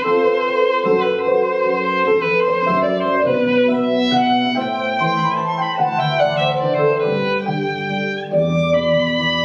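Violin playing a melody in held, bowed notes over a lower accompanying instrument, as a duo of live instrumental music.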